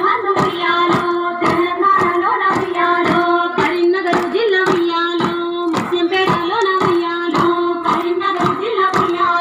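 A circle of women clapping in a steady rhythm, roughly two claps a second, in the Bathukamma circle dance. Over the claps runs a female-sung Telugu Bathukamma folk song.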